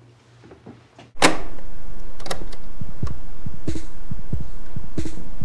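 A loud, throbbing low beat starts suddenly about a second in after a near-quiet moment and carries on steadily, with many short deep thuds in a regular pulse.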